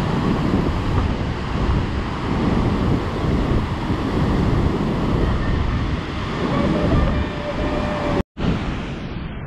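River water rushing loudly through whitewater rapids, a steady dense roar with wind buffeting the microphone. The sound drops out for a moment near the end.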